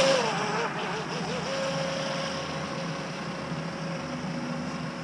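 WLtoys WL915 RC speedboat's brushless electric motor running at speed with a hiss of water. Its whine wavers in pitch during the first second, then holds steady.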